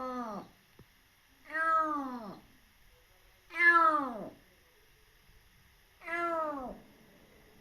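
Kitten meowing over and over, about every two seconds: the end of one meow, then three full meows, each falling in pitch at its end.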